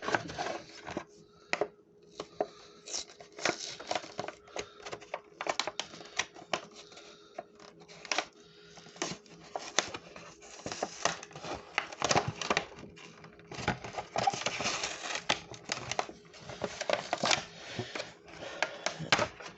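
Toy-car packaging of cardboard and plastic being opened by hand: irregular crinkling, tearing and sharp clicks of the packaging, with a faint steady hum underneath.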